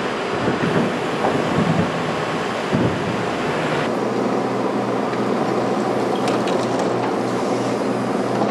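Loud, steady machinery noise with a low hum, with some irregular knocking in the first few seconds. The higher hiss drops away at about four seconds, leaving the hum with a slight pulse.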